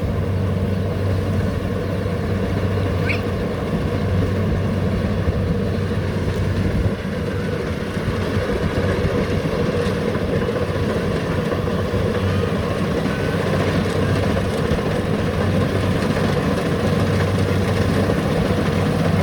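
Diesel engine of a rice combine harvester running steadily under load, an even, unbroken drone with a strong low hum.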